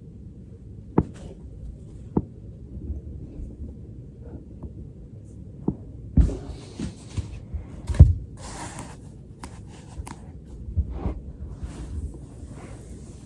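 A person working on a foam roller: a low rumble of the roller and body on the floor, with several short, sharp thumps, the loudest about eight seconds in, and some rustling in the middle.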